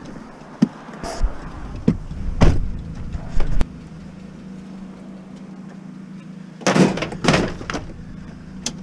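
Knocks and clunks of a minivan's front door and of bent scrap sheet-metal siding panels being shifted inside the van, over a steady low hum. Several sharp knocks come in the first few seconds, and a longer scraping clatter comes about seven seconds in.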